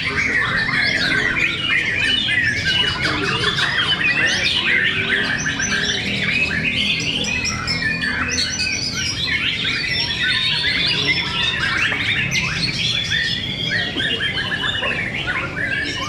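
Many caged white-rumped shamas (murai batu) singing at once in a song contest, a dense unbroken tangle of rich whistled phrases, trills and chirps overlapping one another.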